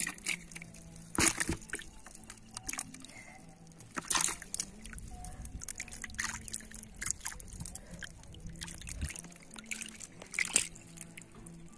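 Irregular wet splashes and rustles as small fish are picked out of a wet nylon cast net and dropped into a bucket of water, the loudest about a second in, about four seconds in and near the end.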